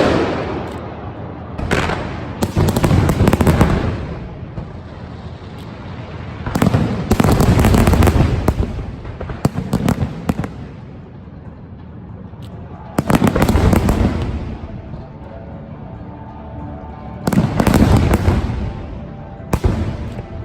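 Aerial fireworks display: volleys of shell bursts and crackle come in waves every few seconds, each lasting a second or two. Music plays underneath, heard more plainly between the volleys.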